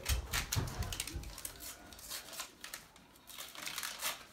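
Paper rustling and crinkling as an envelope and card are opened and handled, with a few low thumps in the first second or so.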